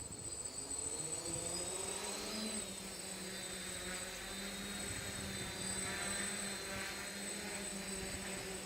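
Quadcopter drone's propeller motors buzzing, rising in pitch over the first couple of seconds as they speed up, then holding a steady hum. Wind gusts rumble on the microphone underneath.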